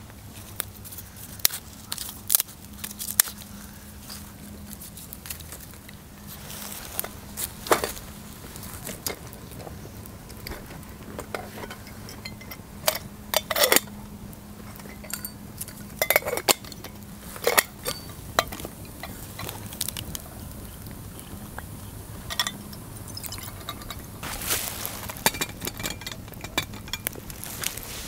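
Small campfire of dry twigs crackling, with irregular sharp pops and snaps as sticks are handled and laid on the fire. An aluminium kettle clinks lightly as it is moved and set down by the flames.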